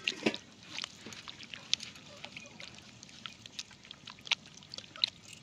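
Hand squishing and kneading raw mutton pieces in a steel plate, working turmeric into the meat: soft wet squelching with scattered short clicks.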